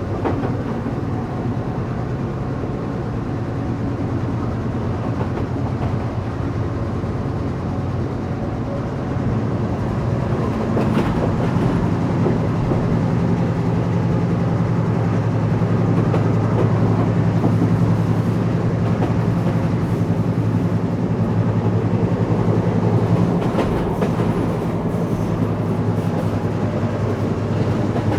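Express train running along the track, heard from inside a passenger coach: a steady rumble with a low hum from the Class M6 diesel locomotive hauling it, and occasional clicks of wheels over rail joints. The rumble and hum grow louder about ten seconds in.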